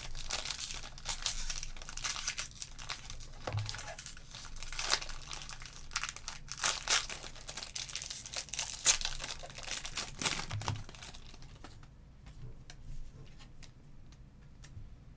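Foil wrapper of a Donruss basketball card pack being torn open and crinkled by hand, crackling for about ten seconds before dying down to quieter handling of the cards.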